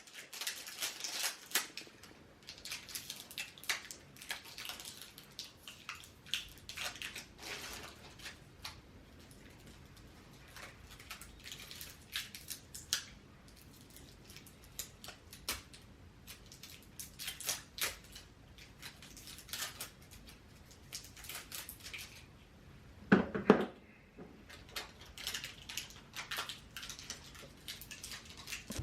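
An irregular run of short rustles, scrapes and clinks of things being handled, with one louder knock about 23 seconds in.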